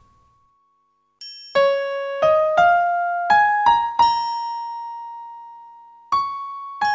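Keyboard music without voice: after a moment of silence, single electric-piano-like notes are struck one by one, climbing in pitch, the last one held and slowly fading before another note sounds near the end.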